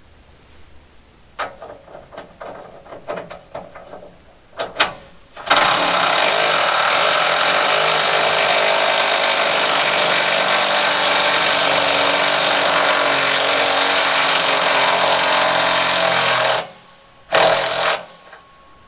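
A few knocks and clanks, then a power tool running steadily for about eleven seconds. It stops suddenly and gives one more short burst near the end.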